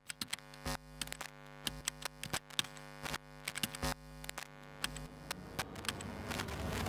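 Electrical buzzing hum overlaid with irregular crackling clicks, growing steadily louder and breaking into a hiss of static near the end.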